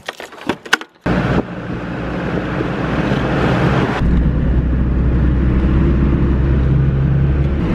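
A few metallic clicks and jangles of keys at a vehicle door lock, then engine and road noise from inside a moving vehicle, with a steady low hum, growing louder over the next few seconds and then holding steady.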